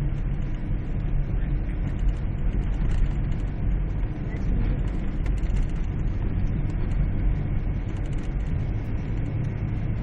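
Car driving through deep snow, heard from inside the cabin: a steady low rumble of engine and tyres.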